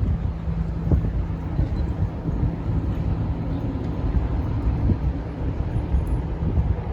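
Street ambience: a steady low rumble of traffic with gusts of wind buffeting the microphone.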